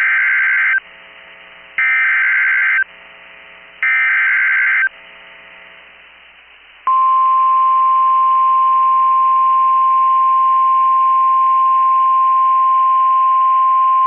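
NOAA Weather Radio Specific Area Message Encoding (SAME) header: three one-second bursts of warbling data tones, about two seconds apart. About seven seconds in, the steady 1050 Hz weather radio alert tone starts and holds. Together they signal a new warning about to be read, here a severe thunderstorm warning.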